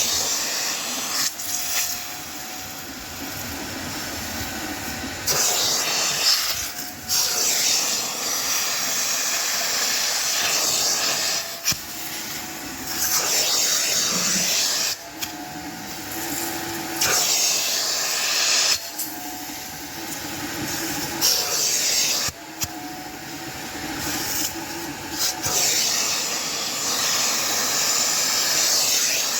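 VEVOR wet-dry vacuum running while being worked over car seat upholstery in repeated passes. The sound switches every few seconds between a loud hiss of rushing air and a steadier motor whine.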